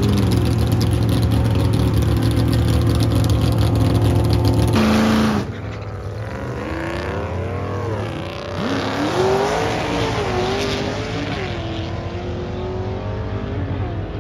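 A '56 Chevy drag car's engine runs steadily and loudly on the starting line. About five seconds in it gives way to two drag cars launching and pulling away down the strip, their engine pitch rising and dropping with each gear change as they fade into the distance.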